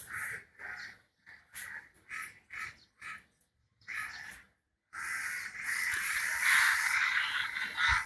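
Repeated short, harsh animal calls, about two or three a second, then a pause. From about five seconds in comes a louder, continuous harsh noise.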